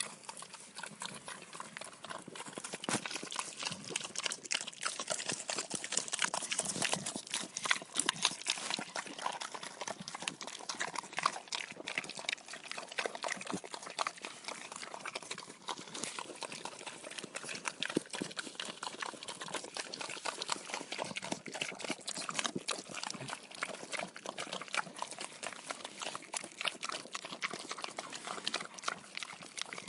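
Pigs eating: a continuous, dense crackle of wet chewing, smacking and slurping, busiest about six to eight seconds in.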